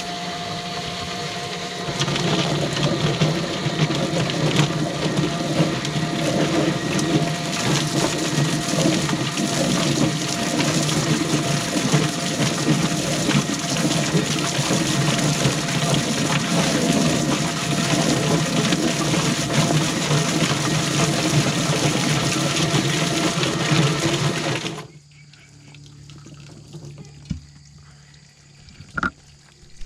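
Kitchener tub chicken plucker running with a scalded rooster tumbling inside, its spinning rubber-fingered plate beating the feathers off. The motor's hum grows louder and rougher about two seconds in as the bird is thrown around, and the machine stops suddenly near the end.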